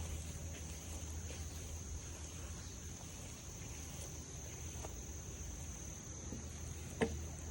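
Steady high-pitched insect chorus, like crickets, over a low rumble, with faint scattered ticks and one sharp snap near the end.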